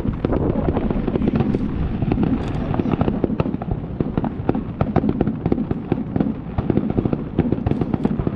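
Aerial fireworks bursting in rapid, overlapping succession, dense bangs and crackles over a continuous rumble, as in a finale barrage.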